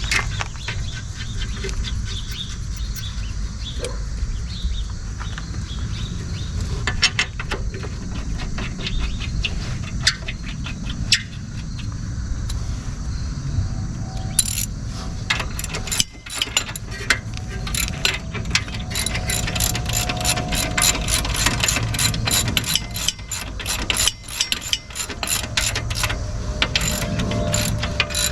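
Ratchet wrench clicking in quick runs, turning down the brake caliper bolts, with scattered clicks and metal taps before the longer runs start about halfway through. A steady low rumble sits underneath.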